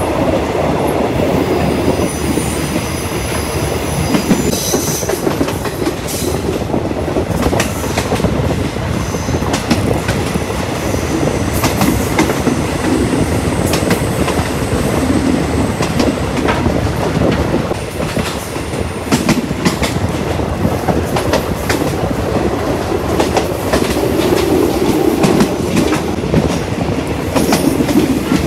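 Passenger train running on the rails, heard from aboard: a steady rumble with the wheels clicking over rail joints, and brief high-pitched wheel squeals a few times.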